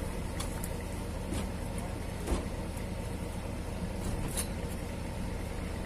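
Steady low hum of an idling engine, with a few sharp knocks as watermelons are set down and stacked on a truck bed; the loudest knock comes a little over two seconds in.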